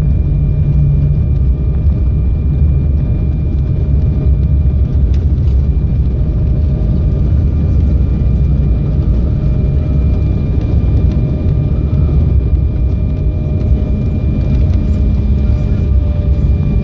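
Embraer 195 airliner rolling out on the runway just after touchdown, heard from inside the cabin with its ground spoilers up: a loud, steady rumble of wheels and engines under a thin, steady engine whine that dips slightly in pitch near the end.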